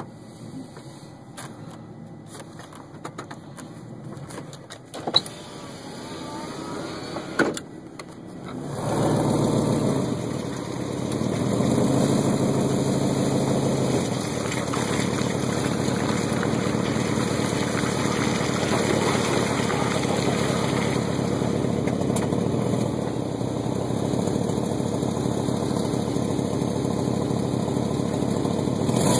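1999 Chevy Silverado 1500 Z71 pickup engine running quietly with a couple of clicks, then getting much louder about eight seconds in and running steadily as the truck drives, heard with the camera out the side window.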